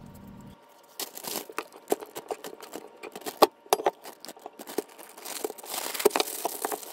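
Chopped chicken being cleared off a wooden cutting board, with scattered light knocks and clicks, then a plastic zip-top bag crinkling as it is handled near the end.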